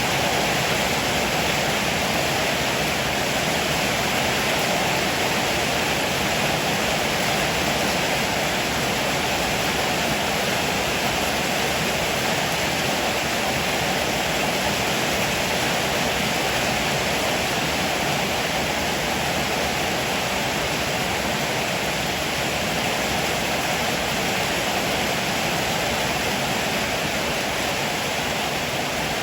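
Heavy rain falling in a steady, even downpour with no break or thunderclap.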